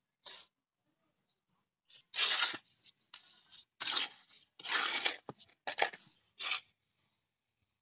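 Mason's trowel scraping wet cement mortar in a series of about six rough strokes, each about half a second long.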